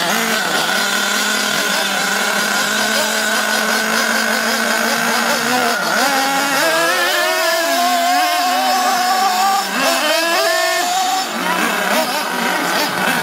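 Motors of RC cars running under throttle, a steady whine with several pitches that waver and shift for a few seconds in the middle.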